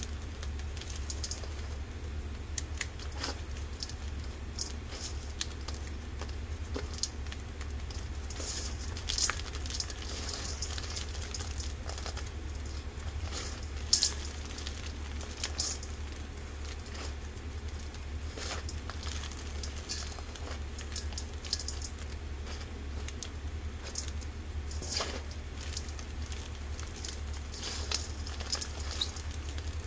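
Hands crushing and squeezing crumbled pieces of a boiled, dyed gym chalk block in a metal bowl: dry, irregular crunching and crackling with a few louder crunches, over a steady low hum.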